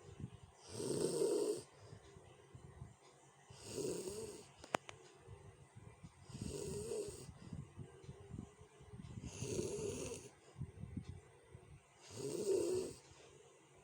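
A sleeping person snoring coarsely. There is a loud rasping snore about every three seconds, five in all, with quieter rattling breaths between them. A single sharp click comes about five seconds in.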